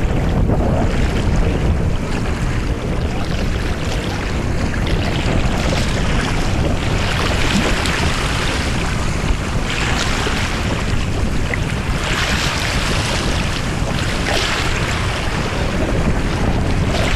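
Wind buffeting the microphone with a steady low rumble, over small sea waves lapping and washing, which hiss up in surges several times.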